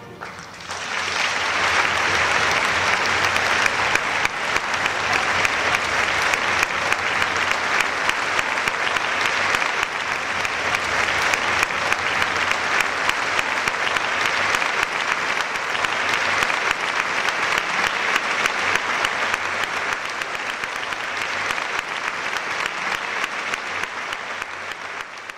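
Audience applauding: dense, steady clapping that builds within the first second and fades away near the end.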